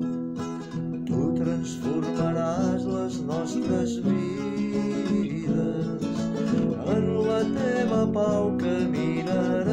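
A worship song: acoustic guitar strummed and plucked under a voice singing Catalan lyrics.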